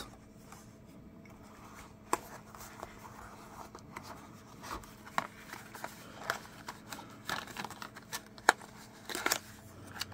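Cardboard packaging being handled: scattered light clicks, taps and scrapes as a small box is lifted out and its flap worked open, busier and louder in the second half.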